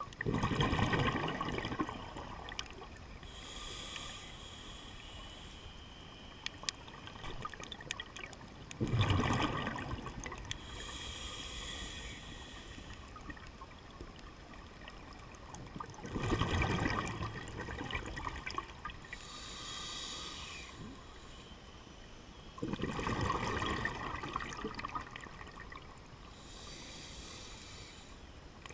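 A scuba diver breathing through a regulator underwater: four bursts of bubbling exhalation, each followed by a hissing inhale, about every seven seconds.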